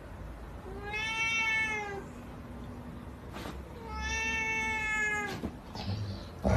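A domestic cat, an orange tabby, meowing twice: two long, drawn-out meows a couple of seconds apart, each rising slightly and then falling off.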